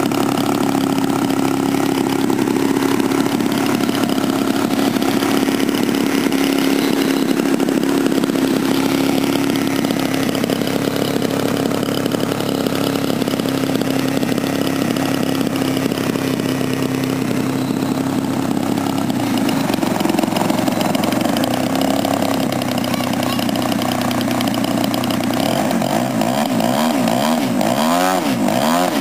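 Desert Aircraft DA-100L twin-cylinder two-stroke gasoline engine with its propeller spinning, running steadily on its first run. The pitch shifts slightly about two-thirds of the way through and wavers up and down near the end.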